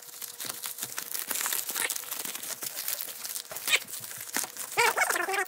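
Plastic bubble-padded mailer crinkling and tearing as it is pulled open by hand, a dense run of small crackles, with a brief voice near the end.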